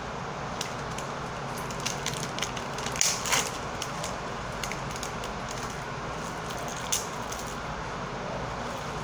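Plastic-and-paper packaging of a disposable syringe crackling and rustling as gloved hands peel it open. There is a cluster of sharp crackles from about two to three and a half seconds in and another near seven seconds, over a steady background hiss.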